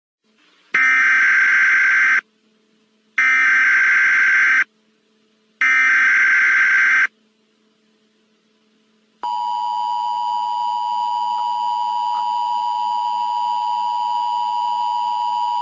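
Emergency Alert System tones: three identical screeching bursts of SAME header data, each about a second and a half long with short gaps between, then about nine seconds in the steady two-tone EAS attention signal begins, the alarm that comes before the spoken alert.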